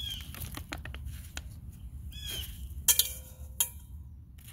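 Handling noise from close to the microphone: light rustling and a few sharp clicks, the loudest two about three seconds in. Two short falling chirps, one at the start and one about two seconds in, over a steady low rumble.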